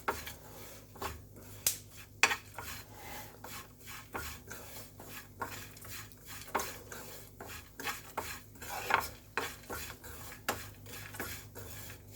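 Roasted dry fruits, fennel seeds and spice powder being stirred in a pan with the heat off: irregular scrapes and clicks of the utensil against the pan.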